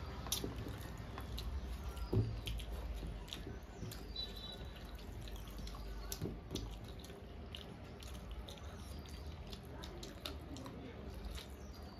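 Close-up eating sounds: fingers mixing and squishing rice with mutton curry on metal plates, and wet chewing and lip smacks, with scattered small clicks and a single dull knock about two seconds in.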